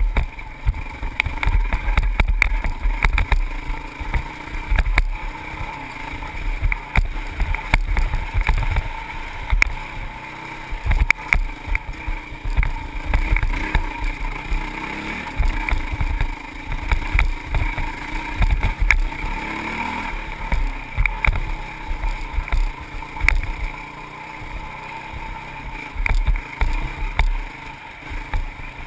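Honda CRF450X single-cylinder four-stroke dirt bike engine running and revving up and down while ridden over a rough dirt trail. It is heard from a helmet-mounted camera, with heavy wind buffeting on the microphone and frequent knocks from bumps.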